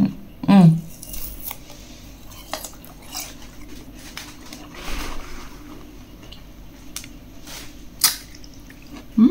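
A person biting into and chewing a piece of candied pickled fruit dipped in chili salt: scattered wet, squishy mouth noises and small crunchy clicks, with a short hum about half a second in and a sharper click near the end.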